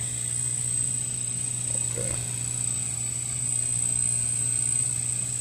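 Aquarium filter setup running: a steady low electrical hum and a constant high-pitched whine over a haze of moving water.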